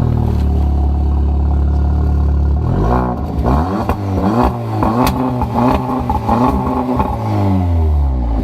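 Audi S3's turbocharged 2.0-litre four-cylinder, breathing through a Milltek cat-back sport exhaust, just after a cold start: a steady fast idle for about three seconds, then a run of quick throttle blips, the revs rising and falling about once a second for some five seconds, with a few sharp cracks among them.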